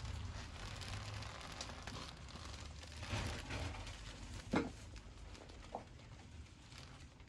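Faint rustling and crinkling of the bouquet's paper wrapping over quiet room tone, with one brief pitched squeak a little past halfway.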